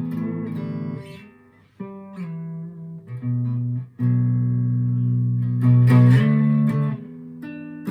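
Chapman electric guitar on a clean tone, single notes plucked one at a time and left to ring while the guitar is being tuned, some notes shifting slightly in pitch as a string is adjusted.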